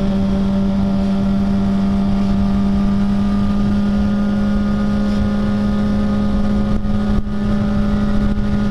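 Sport motorcycle engine holding one steady note while cruising at constant speed, with wind rumble on the helmet-mounted microphone.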